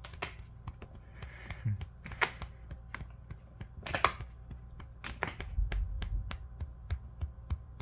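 A cat's claws scratching at a shoji paper door: a run of light, irregular clicking scratches with a few louder strokes, and a dull low bump about two thirds of the way through.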